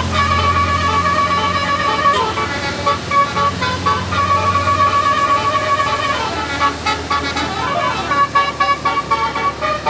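A bus's Basuri multi-tone telolet horn playing a tune of held notes that switch pitch, with a short break about two seconds in and sliding notes, first falling then rising, around seven seconds in.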